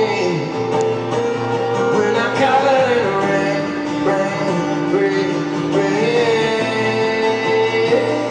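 Live music: acoustic guitar playing with a singing voice, at a steady level.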